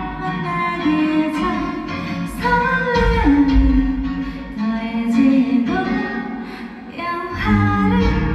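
A solo singer performing a wedding congratulatory song (chukga) over instrumental accompaniment, holding long sung notes that change pitch every second or two.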